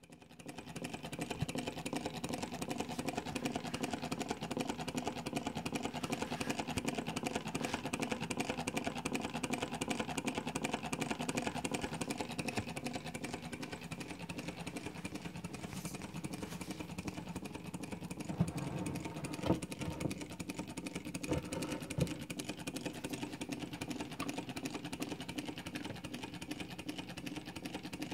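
Homemade four-cylinder solenoid piston engine running steadily, a fast, even clatter as the solenoids pull the pistons in turn. A few louder knocks stand out about two-thirds of the way through.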